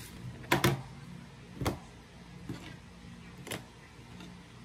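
A few hard knocks and taps of a hardcover sketchbook and a paintbrush being set down into a plastic tray on a wooden desk: a loud double knock about half a second in, another a second later, then lighter taps, over a steady low hum.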